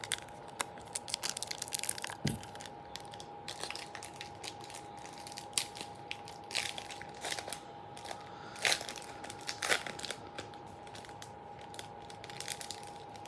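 A trading card pack's wrapper being torn open and crinkled, in irregular crackles and snaps, over a faint steady hum.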